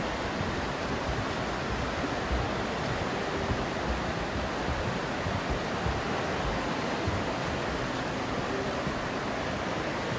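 The Aare river rushing through its narrow rock gorge: a steady, even rush of fast-flowing water.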